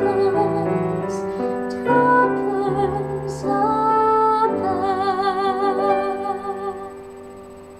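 A singer holds the last notes of a slow ballad with a wide vibrato over sustained piano chords, and the music fades away near the end.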